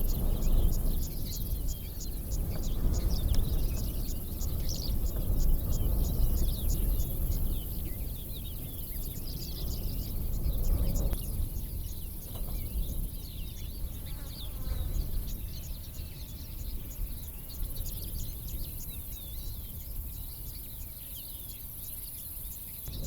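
Savanna birds chirping in quick repeated calls over a steady high insect hiss, with a low rumble that eases about halfway through.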